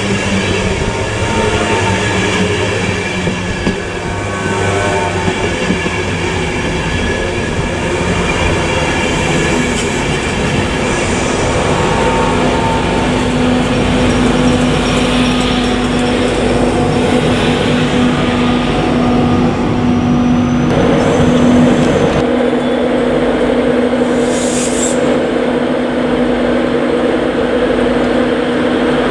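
A Class 91 electric locomotive and its Mark 4 coaches passing close by, with continuous wheel-on-rail noise and a steady electrical hum that sets in as the locomotive goes by. In the last seconds, a Class 91 standing at a platform hums steadily.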